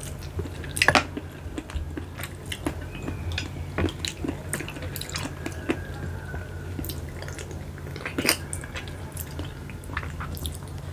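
Close-miked eating of keong macan (babylon sea snails) in balado chilli sauce: chewing with many short wet clicks and smacks, the loudest about a second in and again near the 8-second mark. A steady low hum runs underneath.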